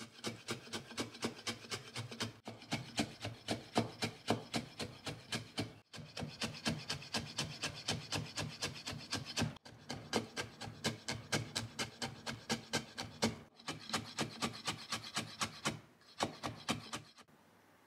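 Chef's knife finely slicing tough amanatsu orange peel into thin strips on a wooden cutting board. The blade knocks the board in a steady rhythm of about four cuts a second, with short pauses every few seconds, and stops shortly before the end.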